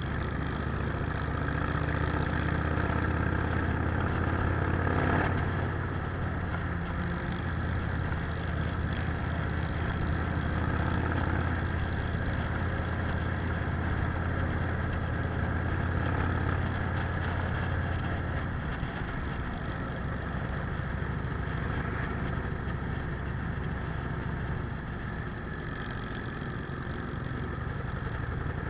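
Cruiser motorcycle engine running steadily at road speed, heard from the rider's seat with wind rushing past the microphone; the engine note drops a little about two-thirds of the way through.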